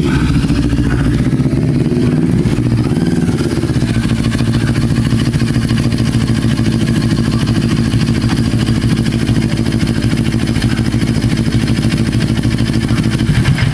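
CFMOTO NK400 motorcycle's parallel-twin engine running at a steady speed while the new clutch cable is tested, then stopping abruptly near the end.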